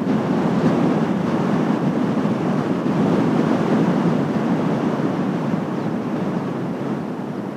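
Strong gusty wind rushing and buffeting the microphone's windshield, a steady loud rumble that rises a little about a second in.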